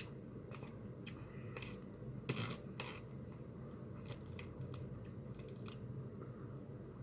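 Close-miked eating sounds: scattered small clicks and smacks of chewing, with a short louder cluster of crackly bites about two and a half seconds in, over a steady low room hum.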